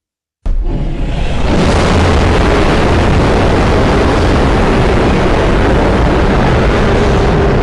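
Designed monster-roar sound effect: a loud, dense rumbling roar with a heavy low end that starts suddenly about half a second in and holds steady.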